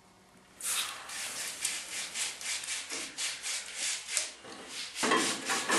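Red-hot forged tomahawk steel quenched in a bucket of water, sizzling and hissing in quick pulses as it is worked in the water. It starts about half a second in and grows louder near the end.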